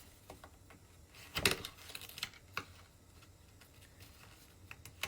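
Scattered small clicks and taps of oyster shells and an opening tool being handled on a table, with one louder knock about a second and a half in.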